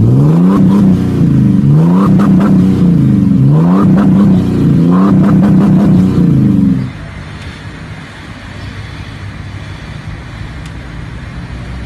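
A vehicle's engine revved hard four times in a row, its exhaust blasting through a hollow log pressed over the tailpipe. About seven seconds in it cuts off suddenly, leaving a quieter, steady rushing noise.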